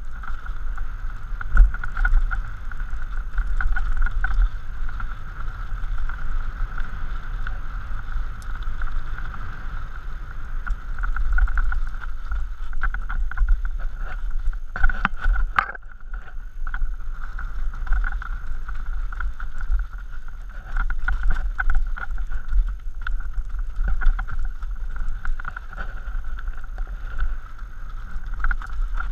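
Mountain bike rolling fast down a rocky dirt trail: a steady rush of wind on a helmet-mounted camera microphone, with tyre rumble and frequent rattles and knocks as the bike hits rocks and bumps.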